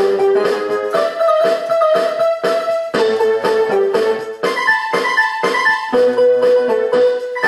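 Background music: a piano-like keyboard melody of held notes over steadily repeated chords.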